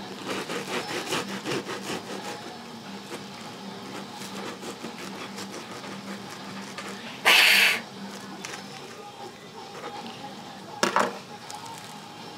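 Serrated bread knife sawing through a soft bread roll in quick strokes for the first two seconds. About seven seconds in, a loud half-second burst of noise made by a person to scare off a cat scratching a door frame, and a shorter burst about three and a half seconds later.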